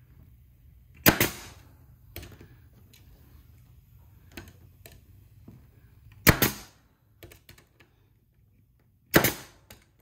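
Brad nailer firing three sharp shots, the second about five seconds after the first and the third about three seconds later, driving brad nails into glued walnut pieces of a mallet head. Lighter clicks come between the shots.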